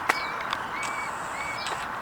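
Small birds chirping in short repeated calls over steady background noise, with one sharp click just after the start.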